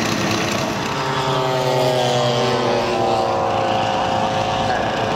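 Engine of a large-scale RC model aeroplane running, its pitch sinking slowly over a few seconds.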